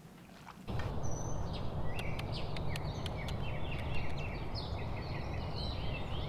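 Birds chirping and singing in many short rising-and-falling notes over a steady low outdoor rumble. The outdoor sound cuts in suddenly under a second in, replacing quiet room tone.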